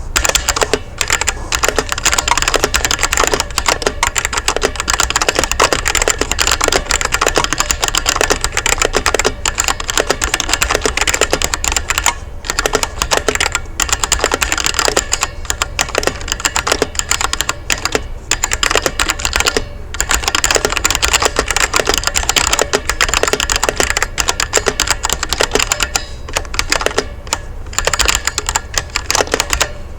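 Fast, continuous typing on a budget MUCAi 60% mechanical keyboard with red linear switches and a cheap plastic case. The keystrokes clack densely, with a few brief pauses. The board is stock, with no tape or dampening mod.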